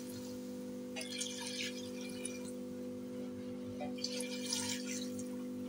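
Mutton stock (yakhni) poured into a pot of hot fried mutton and masala, splashing and bubbling in two short spells, about a second in and again near four seconds in, over a steady low hum.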